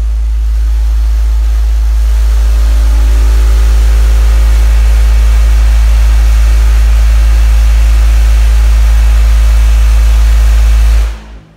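A car-audio subwoofer system plays a single steady, very loud deep bass tone at full amplifier power, about 4,966 watts, in a burp that reaches 158.1 dB SPL. A buzzing rattle rides on top of the tone, and the tone cuts off suddenly about eleven seconds in.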